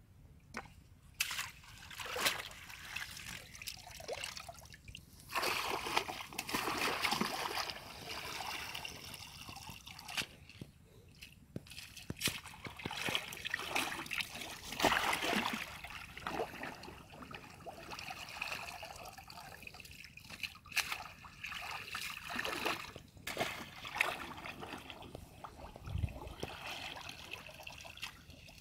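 Shallow muddy water sloshing and splashing as a woven bamboo basket is pushed through it and lifted, with water trickling back out through the weave. The splashes come irregularly, with louder surges here and there.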